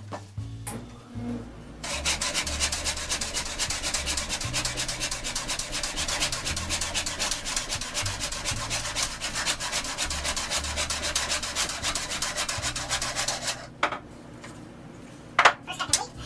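Hand saw in a miter box cutting through a wooden board with rapid, even strokes for about twelve seconds, then stopping abruptly. A sharp knock or two follows near the end.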